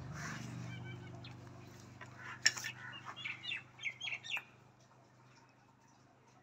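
Farrier's hammer tapping horseshoe nails into a horse's hoof: one sharp knock about two and a half seconds in, then a quick run of light, ringing metal taps that stops near the middle.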